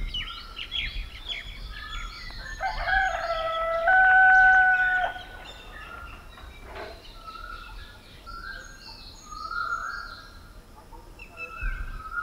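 A rooster crows once, about three seconds in: one long call that rises and then holds a higher note for about a second before cutting off. Many small birds chirp around it in a dawn chorus.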